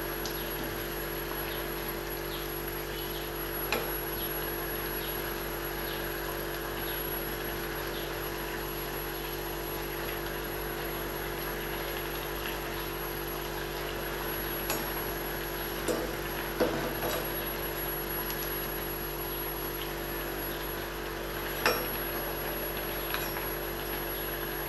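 Appalam bajji deep-frying in oil in a clay pot: a steady sizzle, with a few light clicks of a metal ladle against the pot as the fritters are turned.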